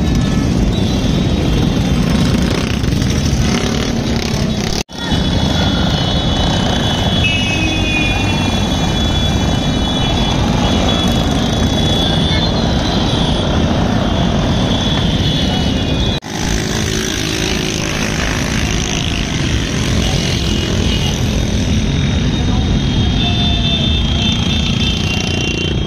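Busy street noise of vehicles and motorbikes running, with crowd voices and thin high whistle- or horn-like tones over it. The sound drops out abruptly for a moment twice, about 5 and 16 seconds in.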